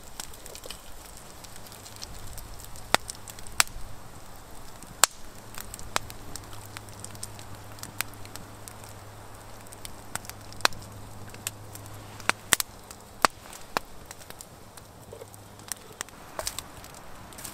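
Wood campfire crackling, with irregular sharp pops and snaps.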